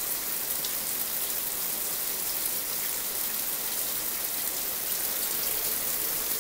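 Shower water running, a steady hiss of spray.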